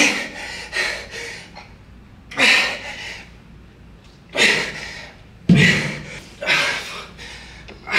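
A man breathing hard and forcefully under exertion, with a sharp exhale or gasp every second or two as he strains through the last reps of a heavy dumbbell lunge set.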